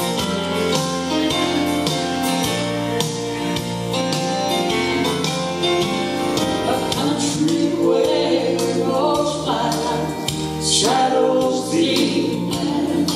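Live gospel music: a trio of a man and two women singing with instrumental accompaniment.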